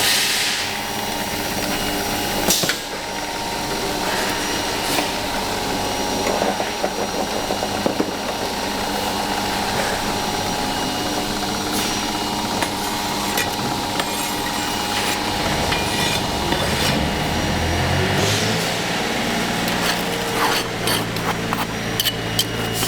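Foundry workshop noise: machinery running with a steady hum, overlaid by scraping and occasional knocks from sand-moulding work.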